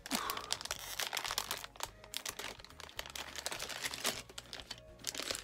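Shiny plastic minifigure blind-bag packet crinkling in small hands as it is handled and torn open, a dense run of irregular crackles.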